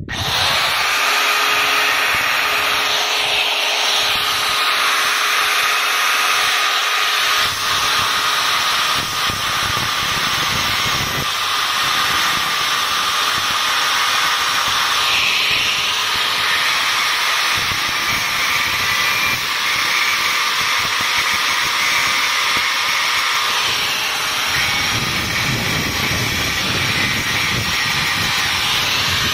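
Angle grinder with a thin cut-off disc, switched on abruptly, then running steadily with a constant high whine as it cuts bronze nails flush with the plywood hull.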